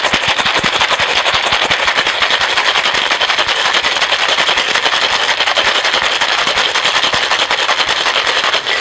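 Ice rattling hard inside a metal cocktail shaker tin during a vigorous cocktail shake, a loud continuous clatter that stops abruptly near the end. The hard shake breaks down the ice to chill and dilute the drink.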